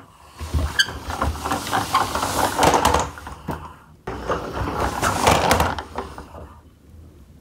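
Large plastic Lightning McQueen toy car rolling on a hard floor, its wheels making a steady rumbling noise with light clicks, in two stretches; the second starts abruptly about four seconds in and fades out near the end.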